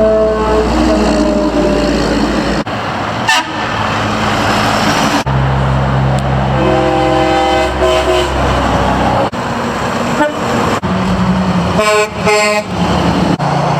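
Semi-truck horns honking as big rigs pass, several short blasts each sounding a chord of notes, over the low rumble of the trucks' diesel engines and road noise. The sound jumps abruptly several times between clips.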